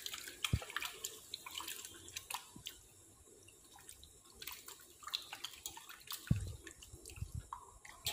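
A hand swishing raw chicken pieces in a steel bowl of water, with faint scattered splashes and drips, rinsing the blood off the meat.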